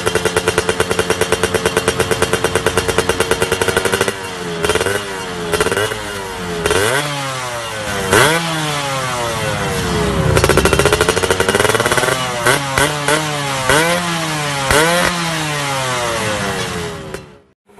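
Yamaha F1ZR's two-stroke single-cylinder engine running through an SMR Jogja racing exhaust. It holds a steady fast idle for about four seconds, then is revved in a string of quick throttle blips, each rising and falling in pitch, with one longer rev about ten seconds in. The sound cuts off suddenly just before the end.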